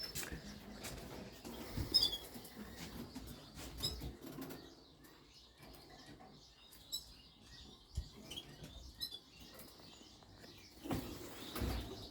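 Small birds chirping now and then: short, high calls a couple of seconds apart. Under them runs a faint low rumble that grows louder near the end.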